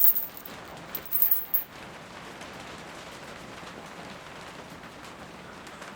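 Steady rain falling, an even hiss. A few brief louder crackles come in the first second and a half.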